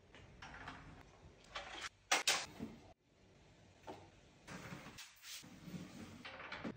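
Household tidying noises: fabric rustling and small objects being picked up, knocked and set down on a wooden coffee table, loudest in a sharp clatter about two seconds in.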